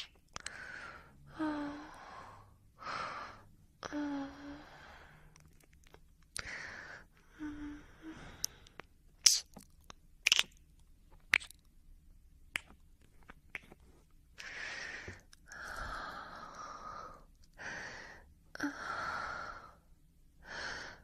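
A person's breathy sighs and gasps, each about a second long, with a run of sharp clicks in the middle.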